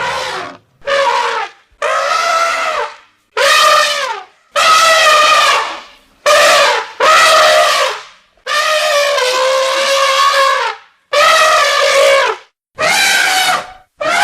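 Elephant trumpeting: a series of about ten loud, brassy calls, each half a second to two seconds long, with short gaps between them.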